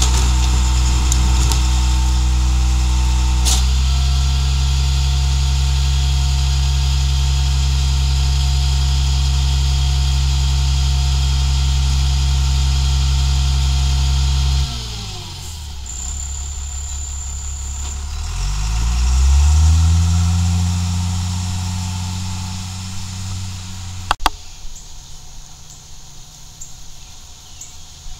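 International garbage truck's diesel engine held at raised revs to drive the hydraulic packer of its New Way rear loader, its note shifting a few seconds in as the packing cycle changes stage. About halfway through the revs drop to idle, then climb again as the truck pulls off, and after a sharp click near the end the engine is heard farther away and quieter.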